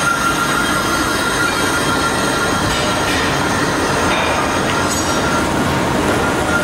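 Workshop machinery running: a loud, steady mechanical rumble with a thin high whine held throughout.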